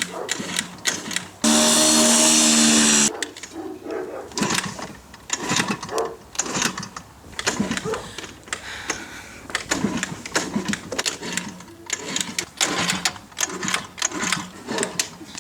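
Old Puch moped's kick-start lever clattering and knocking as it is kicked over and over, the engine not catching. About a second and a half in, a loud steady buzzing tone sounds for about a second and a half and cuts off suddenly.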